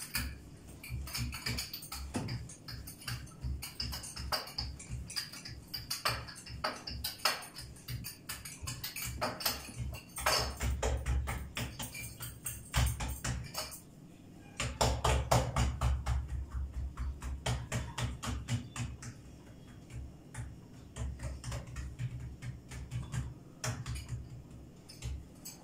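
Rolling pin rolling out pizza dough on a counter: quick runs of knocks and low thumps with short pauses, louder for a few seconds around the middle.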